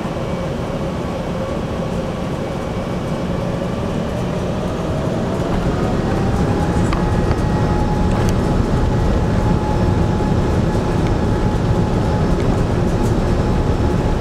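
Airbus A380's Engine Alliance GP7200 turbofans heard from inside the cabin over a steady low rumble; a thin engine whine rises in pitch and the sound grows louder about four to six seconds in, then holds steady: thrust coming up as the aircraft turns onto the runway for takeoff.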